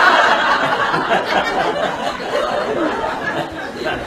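Audience laughing and chuckling, loudest at the start and easing off a little into murmured chatter after about a second.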